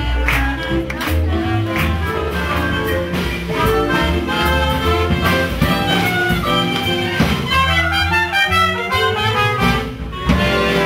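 Live swing jazz band playing an up-tempo tune for lindy hop dancing, with horns over a steady bass and drum beat. The music dips briefly near the end.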